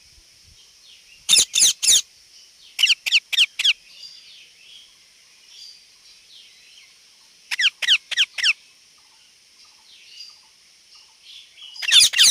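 Indian ringneck parakeet giving short, shrill calls in quick runs of three to five, each call dropping in pitch.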